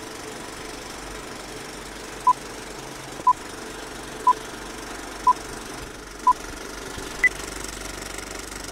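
Film projector running steadily, with a countdown of five short beeps one second apart starting about two seconds in, then a single higher beep about a second later.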